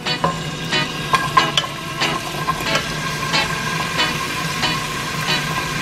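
Diced bell pepper and scallion sizzling as they are tipped into hot oil in a pot, with repeated sharp clicks of a wooden spoon scraping and tapping a ceramic bowl, over a steady low hum.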